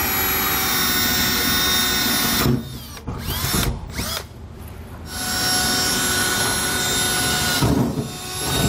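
Cordless drill boring pilot holes through the steel floor of a pickup bed with a small bit, a steady whine. It stops about two and a half seconds in, gives a few short trigger blips, then runs steadily again for a couple of seconds and stops near the end.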